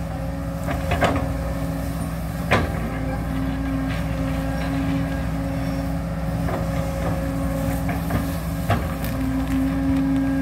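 Backhoe's diesel engine running steadily under load while it works at a tough tree root, with a few sharp knocks and clanks from the digging.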